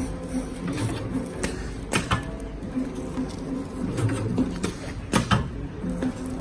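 HDK-400ZD bag-making cut-to-length machine running: the cutting blade comes down on the plastic tube film with a sharp clack roughly once a second, over a pulsing mechanical hum as the film is fed forward between cuts.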